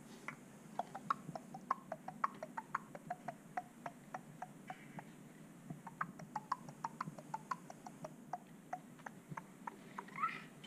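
Tongue clicks making a horse's clip-clop hoofbeat sound, about four sharp clicks a second, with a short pause about halfway.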